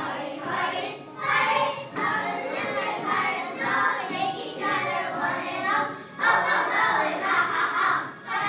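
A group of children singing a song together, with music behind them.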